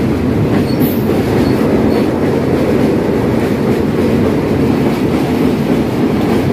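Freight train of open wagons rolling past at close range over a steel railway bridge: a loud, steady rumble of wheels on rail.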